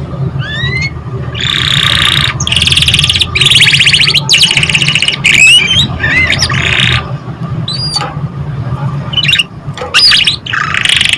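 Domestic canary singing: a string of fast, rattling trills and rolls broken by short rising whistled notes, over a steady low hum.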